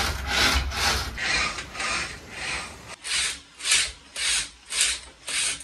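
DC planetary gearmotors in a robot leg being backdriven by hand as the leg is pushed back and forth. Each stroke gives a rasping whir, about two to three a second, a little slower after halfway. It shows the gearboxes can be backdriven.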